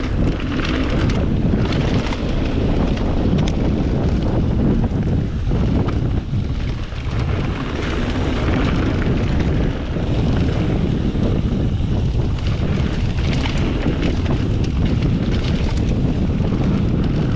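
Wind rushing over the camera microphone of a mountain bike descending a dirt trail at speed, over the steady rumble of tyres on the dirt, with a few small knocks from the bike over rough ground.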